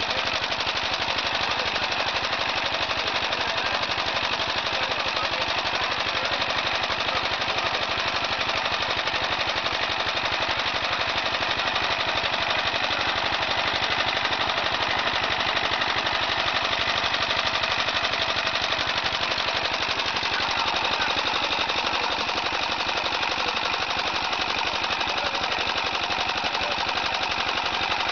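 Charcoal briquette extruder and its drive running steadily, a fast, even pulsing rhythm of the machinery.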